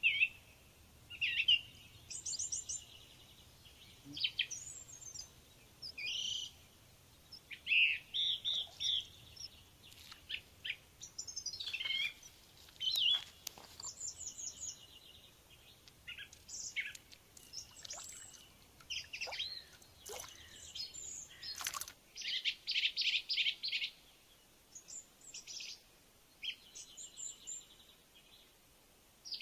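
Songbirds singing and calling: a busy mix of short chirps, trills and fast repeated notes from several birds.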